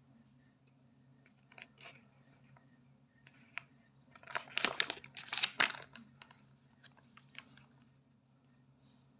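Paper instruction leaflet rustling and crinkling as it is handled and unfolded, in short irregular rustles with a louder stretch of crinkling about halfway through.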